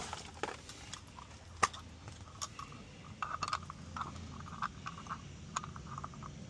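Scattered light clicks and clinks, a dozen or so short separate knocks, over a faint steady low hum.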